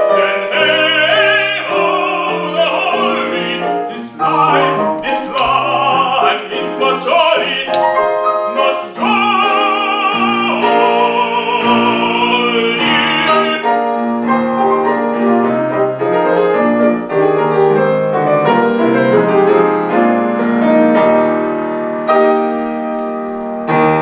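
A tenor sings the closing refrain of an English art song with piano, in operatic style with vibrato, ending on a long held note about halfway through. The piano then plays the closing bars alone.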